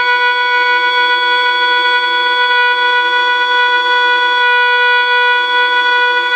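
A vehicle horn held down in one steady, unbroken blast with no rise or fall in pitch.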